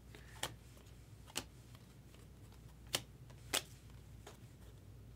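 Baseball trading cards being handled by hand: a few light, sharp clicks and snaps as cards are flipped and slid against one another, four of them spread unevenly, the last one doubled.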